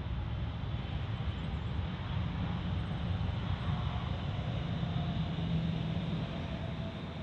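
Airliner's engines making a steady, low rumble, with a faint whine that slowly falls in pitch as the aircraft moves past.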